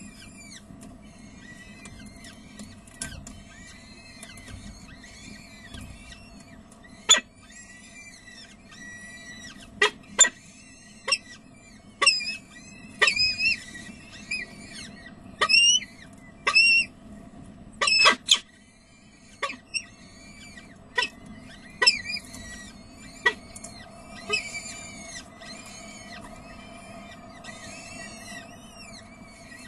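Peregrine falcon chicks begging for food with rapid, high, arched cheeping calls while an adult feeds them, louder and rising in pitch around the middle. Several sharp clicks cut in, the loudest about seven, ten and eighteen seconds in, over a steady low hum.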